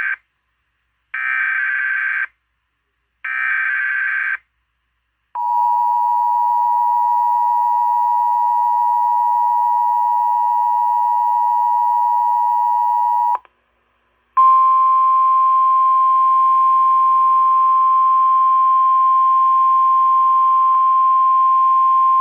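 Emergency Alert System tornado warning: it starts with the end of the first of three harsh buzzing data bursts, the coded alert header, and the other two follow. Then comes the steady two-pitch EAS attention tone for about eight seconds, and after a one-second gap a single steady alert tone for about nine seconds.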